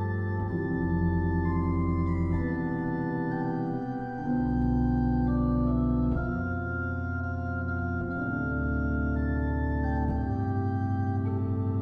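Organ music: slow, sustained chords over a deep held bass, the chord changing every couple of seconds.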